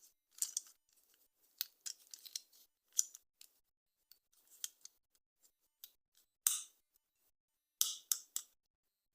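Toy packaging being opened by hand: irregular short, crisp snips and crackles of plastic and cardboard, with brief quiet gaps between them. The loudest come about six and a half and eight seconds in.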